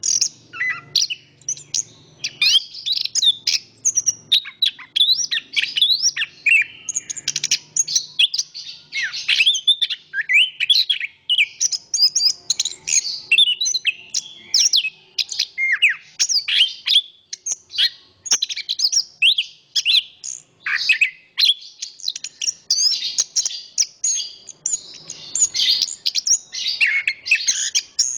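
Chestnut-backed thrush (anis kembang) singing continuously: a fast, varied run of whistled phrases, trills and rapid chirps with hardly a pause.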